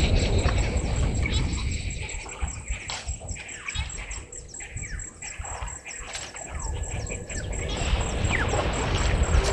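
Birds calling: many short, high, falling chirps, over a low rumbling noise.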